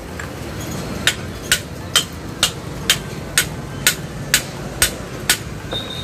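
Hammer striking metal motorcycle front-fork parts: ten even blows, about two a second, starting about a second in, each with a short metallic ring.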